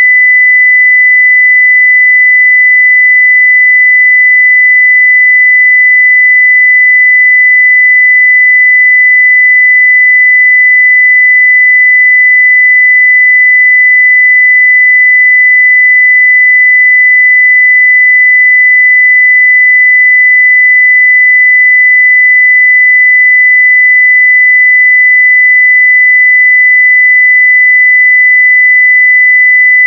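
Steady 2 kHz sine-wave test tone at full level (0 dB), one pure unchanging pitch.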